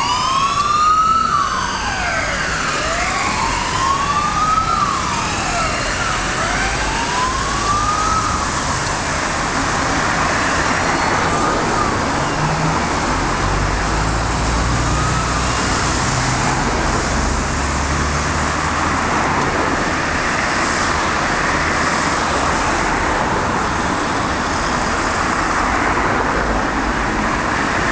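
Wailing siren of a fire and rescue water rescue unit driving away, rising and falling about every two seconds and fading after about eight seconds. Steady road traffic noise follows, with a low engine rumble from passing cars partway through.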